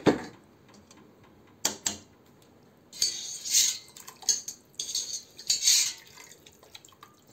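Pots and a strainer clinking while chicken broth is strained from one pot into another, with two stretches of pouring, splashing liquid about three and five seconds in.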